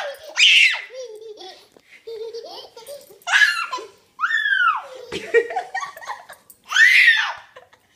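A toddler girl giggling and squealing in about four high-pitched bursts, one of them sliding down in pitch.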